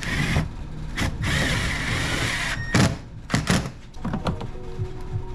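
Several thunks and knocks and a long scraping hiss from plastic door trim being handled and pushed into place. Background music comes in near the end.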